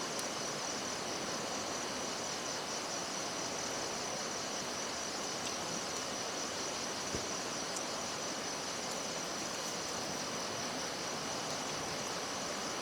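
Steady chorus of insects: a continuous high, evenly pulsing trill over a steady background hiss.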